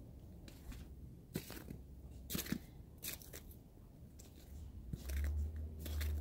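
Faint, irregular crunching of footsteps in fresh snow, a soft crunch every half-second to second. About five seconds in a steady low rumble begins.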